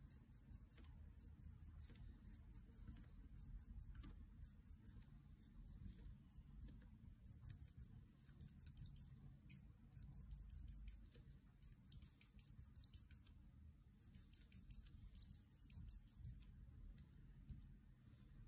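Faint scratch of a Copic alcohol marker's nib on paper, in quick short strokes several a second, pausing briefly now and then, over a low steady room hum.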